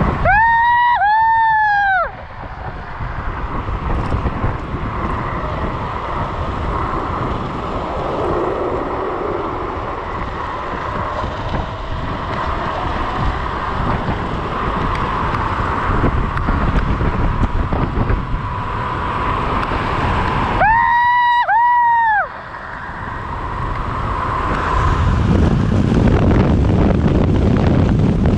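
Wind buffeting the microphone with a steady road rumble while riding an electric scooter at speed. Twice, near the start and about twenty seconds later, a loud electronic tone of two arching notes cuts over it.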